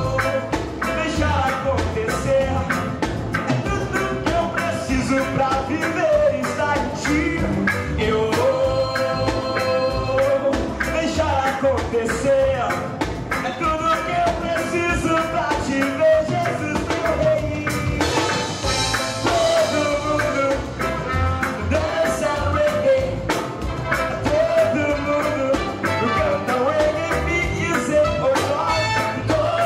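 Live band playing gospel music, with a steady drum beat under singing and melodic lines.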